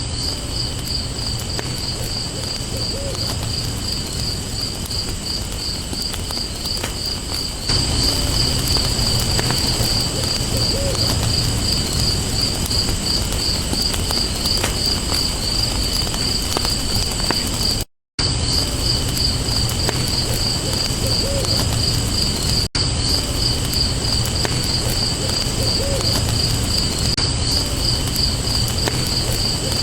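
Night ambience: insects chirping in a steady, rapid high pulse, with faint low hoots every few seconds and light scattered crackles. It gets louder about a quarter of the way in and cuts out for a moment about two-thirds of the way through.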